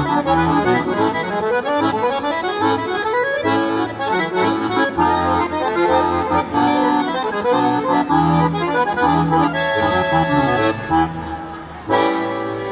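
Accordion playing a lively medley live: quick runs of melody notes over steady bass notes, with a held chord about ten seconds in and another long chord starting near the end.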